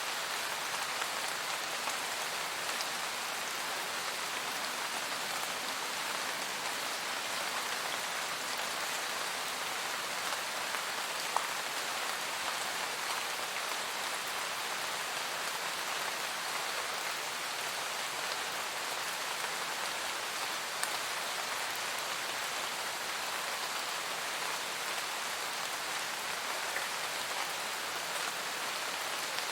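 Steady rain falling on forest leaves, a dense even patter with a few single drops standing out now and then.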